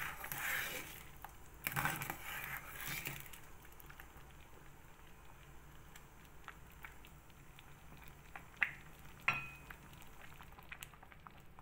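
A metal spoon stirs and scrapes through a boiling pot of sago, sweet potato and corn in an enamelled cast-iron pot, keeping it from sticking to the bottom. The scraping comes in two short spells near the start, then a faint bubbling hiss, with two sharp clinks of spoon on pot near the end.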